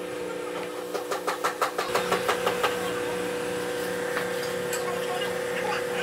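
Rubber door weatherstrip being pulled off the door-opening flange: a quick run of about a dozen crackling clicks over a second or two as the seal lets go, over a steady hum.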